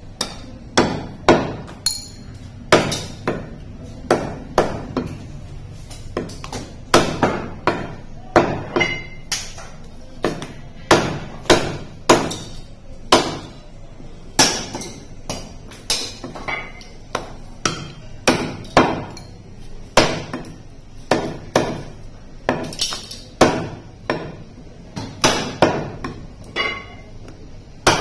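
Heavy butcher's cleaver chopping goat foreleg meat and bone on a round wooden chopping block: a long run of sharp chops, about one to two a second, broken by a few short pauses.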